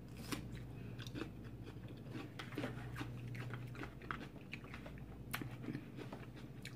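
A person chewing and biting crunchy raw bell pepper slices topped as nachos, with many short, crisp crunches throughout.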